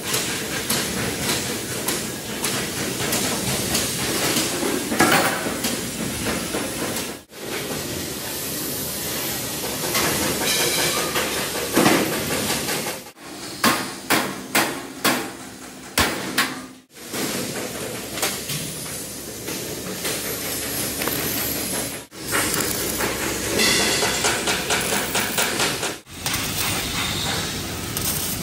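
Metal-working noise in an auto-rickshaw factory, heard over several short cuts: hammering on metal over a steady hiss, with a run of quick sharp knocks in the middle.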